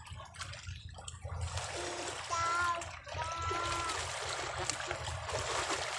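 Small sea waves lapping and splashing at the shoreline, with a low steady rumble beneath. About halfway through, two brief higher-pitched calls are heard in the distance.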